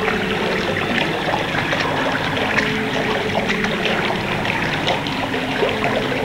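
Steady babbling of running water, dense with small splashy clicks, with faint steady low tones beneath.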